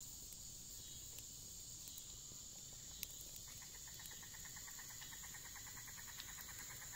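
Insects chirring steadily in a high, even tone. From about halfway, a fast, even glugging as old vegetable oil pours from a plastic jug into a cast-iron skillet to re-season it, fading out near the end.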